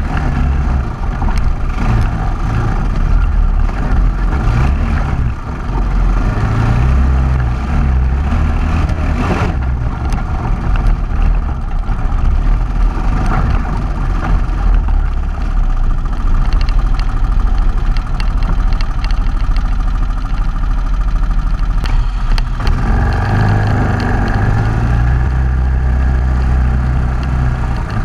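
All-terrain vehicle's engine running at low speed over rock, its note rising and falling with the throttle, with tyre and wind noise on a microphone mounted by the front wheel.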